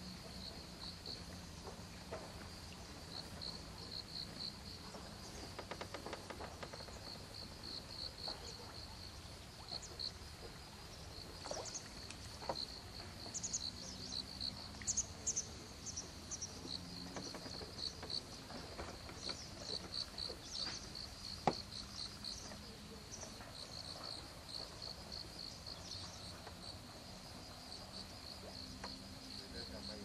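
Insects chirping in a steady, rapid pulsing trill, with a few sharper, higher chirps around the middle.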